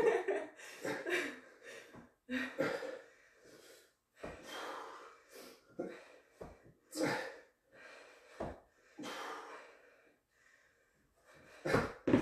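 Heavy breathing and sharp exhales of effort during a leg-throwdown core exercise, in short separate bursts about once a second, with a pause near the end.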